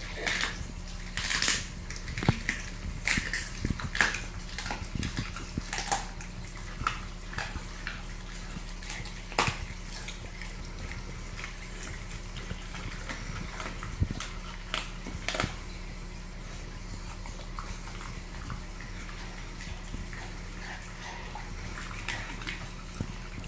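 Rottweiler chewing raw chicken: wet smacking and sharp irregular cracks, coming every second or so at first and growing sparser in the last third.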